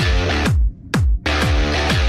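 Electronic dance music with a heavy kick drum about twice a second and sustained synth chords, briefly dropping out just after the first half-second.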